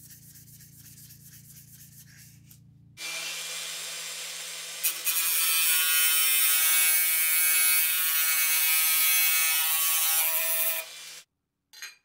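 Sandpaper rubbed by hand over a steel knife blade, faint. About three seconds in an angle grinder starts running. About five seconds in its thin cutoff disc bites into saw-blade steel with a loud, high grinding whine for about six seconds, then stops.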